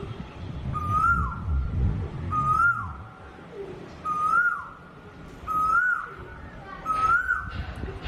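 A bird calling over and over, about once every one and a half seconds: each call is a short whistled note that rises and then falls, with faint high chirps along with it. A low rumble runs underneath.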